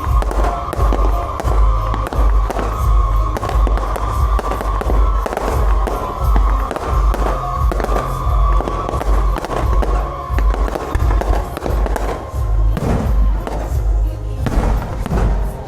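Fireworks and firecrackers crackling and banging over loud music with a heavy, pulsing bass beat. A high held tone runs through it, sinking slightly in pitch and fading after about twelve seconds.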